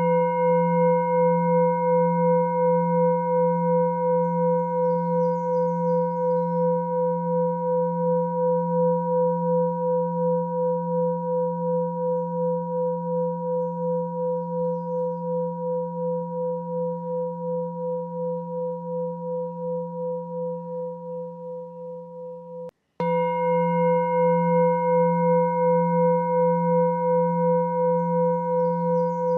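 A bell-like ringing tone with a slow pulsing wobble, made of a low hum and several steady higher tones. It fades gradually, breaks off for an instant about 23 seconds in, and starts again at full strength.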